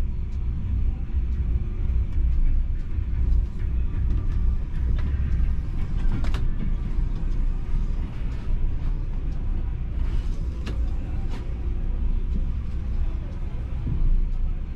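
Volvo B450R coach's rear-mounted six-cylinder diesel engine running with a steady low rumble, heard from the driver's cab, as the bus eases slowly into a terminal bay. A few sharp clicks come through about six and eleven seconds in.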